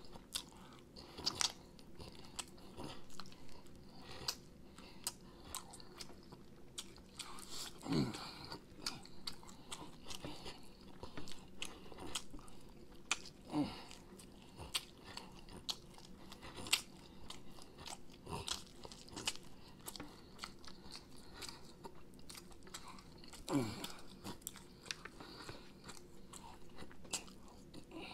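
Close-miked eating of chicken wings: wet chewing, lip smacking and biting as meat is pulled and sucked off the bones, with many short sharp clicks. Three brief sounds drop in pitch, about eight, thirteen and twenty-three seconds in.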